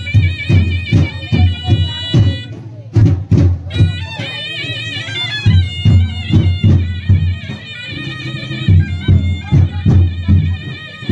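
Folk music: a shrill reed wind instrument playing a wavering melody over steady drum beats, about two a second. The melody drops out briefly about three seconds in while the drums carry on.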